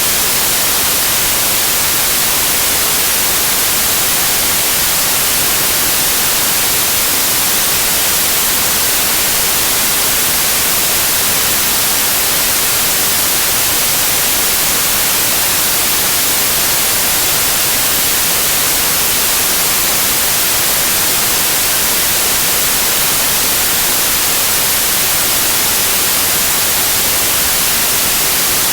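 Steady white noise like TV static: an even, unchanging hiss, brightest in the high end.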